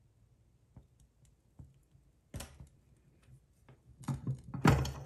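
A few light clicks and taps from a small metal Stirling engine model being handled by hand around its flywheel and base, with a sharper knock about halfway through and a quick cluster of clicks near the end. The engine is still heating up on its alcohol burner and not yet running.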